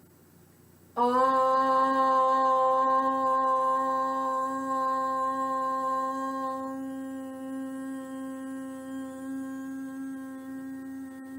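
A single voice chanting one long, steady 'Om', the seed sound of the crown chakra. It starts about a second in and is held for about ten seconds, closing from the open vowel into a hummed 'mm' about two-thirds of the way through and fading slowly.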